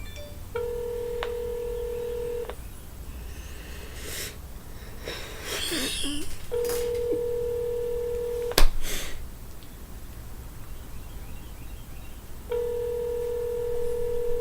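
Telephone ringback tone heard on an outgoing call that has not yet been answered: three steady rings of about two seconds each, about six seconds apart. A sharp click sounds at the end of the second ring.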